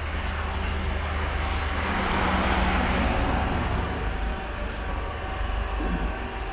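Street traffic: a vehicle passes close by, its noise swelling and then fading over about two seconds, over a steady low hum.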